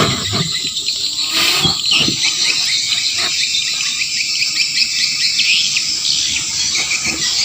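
Birds chirping and insects calling, with a sharp knock at the start and another about a second and a half in.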